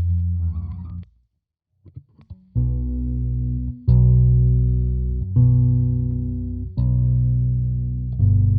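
Electric bass played through a Catalinbread Csidman glitch delay pedal. A held note cuts off abruptly about a second in. After a short silence, five notes are struck about a second and a half apart, each ringing and fading.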